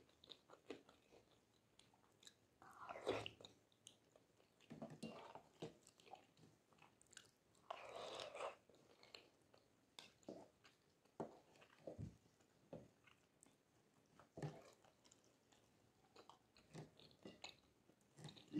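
Faint close-miked eating sounds: chewing and mouth sounds of flat rice noodles and meatballs in spicy broth, with scattered light clicks from wooden utensils in the bowl.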